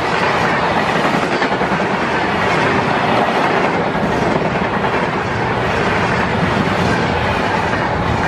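Passenger train coaches passing close at speed: a steady, loud rush of wheels on rails with a rhythmic clickety-clack.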